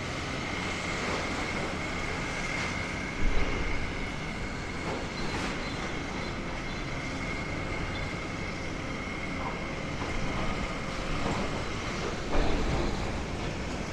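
Demolition excavator working on a building: steady machine noise with a high, steady whine, and two louder thumps, one about three seconds in and one near the end.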